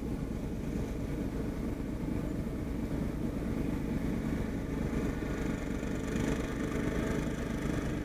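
An engine running steadily with a low hum that grows a little louder as it goes on.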